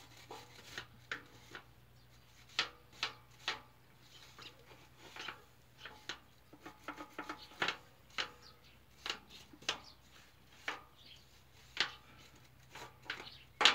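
Hand scraping of caked dirt off the metal wheel hub and axle of a Neva walk-behind tractor: short scraping strokes at irregular intervals, some in quick clusters, with quiet gaps between.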